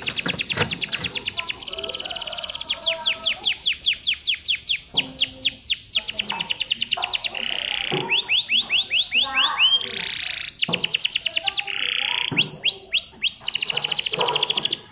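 Canary singing a long song of fast trills and rolls: rapid runs of repeated high notes, some sliding up or down, changing to a new phrase every second or so. The song breaks off suddenly near the end.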